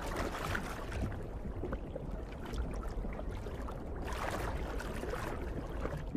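Rushing water noise with a low rumble, swelling briefly near the start and again about four seconds in.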